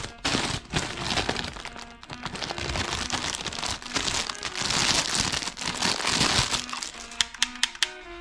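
Plastic packaging crinkling and rustling as it is handled, over background music, with a quick run of sharp clicks near the end.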